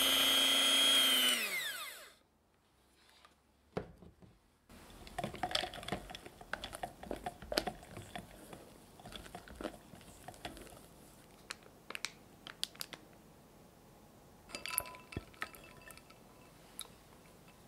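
Electric hand mixer whipping heavy cream in a glass bowl, then switched off about a second and a half in, its whine falling in pitch as the beaters spin down. After a short pause, a spatula folds and scrapes the cream against the glass bowl with soft clicks and squelches, and near the end there is a brief clatter.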